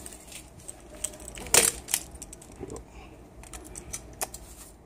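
Scattered sharp clicks and knocks from a camera being handled and set in place, the loudest about a second and a half in.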